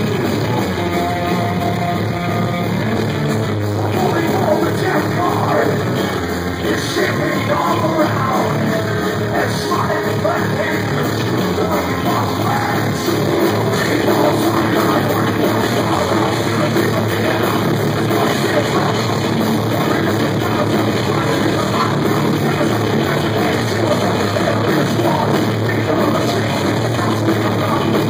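Live rock band playing loud heavy rock: distorted electric guitar, drums and keyboards, with a singer yelling and singing over it.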